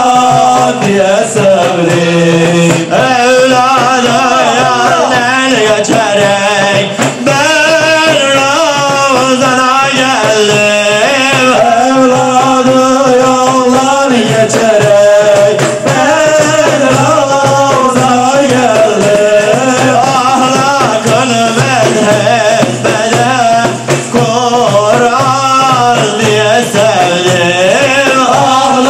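Turkish ilahi devotional music: a long, wavering, ornamented melody line over a group of frame drums, without clear words.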